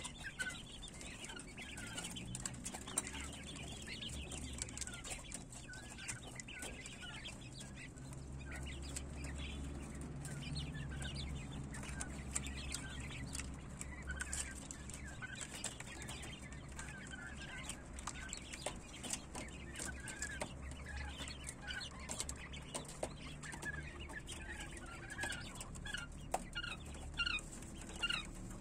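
A brood of quail chicks, about two weeks old, peeping and cheeping in short calls. The calls come continually and overlap, over a low steady hum and a few light clicks.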